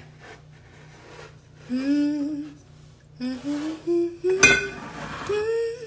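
A woman humming a tune in a few held notes that step up in pitch, with one sharp knock about four and a half seconds in.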